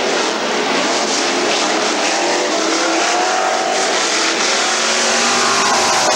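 A pack of dirt-track street stock race cars running flat out around the oval, their engines blending into one continuous drone, with engine notes rising and falling as cars pass.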